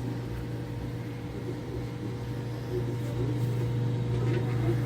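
A steady low machine hum runs throughout, with a few faint steady higher tones above it. It is the room's running background noise; no crack or knock stands out.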